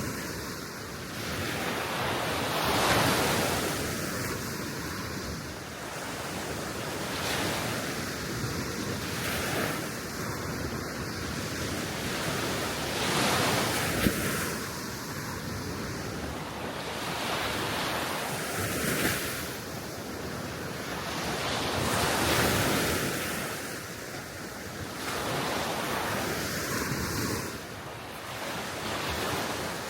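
Small waves of the Baltic Sea washing onto the shore, the noise swelling and falling every few seconds, with wind buffeting the microphone. One sharp click about halfway through.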